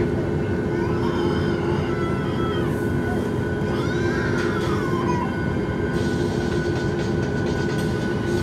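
Cabin noise inside a Boeing 737 MAX 8: a steady rumble with the fixed hum of its CFM LEAP-1B engines. Faint high wavering sounds rise and fall over it a few seconds in.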